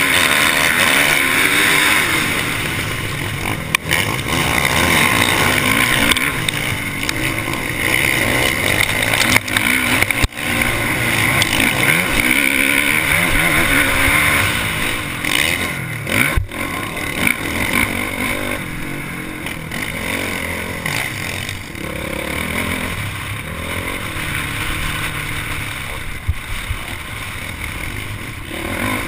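Honda motocross bike's engine revving hard through the gears, its pitch climbing and dropping again and again with each shift, heard from a camera mounted on the bike with heavy wind noise. Three sharp knocks cut through along the way.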